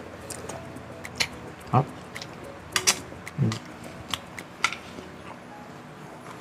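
Close-up mouth sounds of a person eating: chewing and biting with scattered sharp clicks, and a couple of short low hums.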